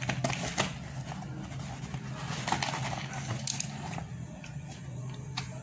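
Small cardboard box being handled and turned over in the hands, with a handful of light taps and scrapes of cardboard and a utility knife against it. A steady low hum runs underneath.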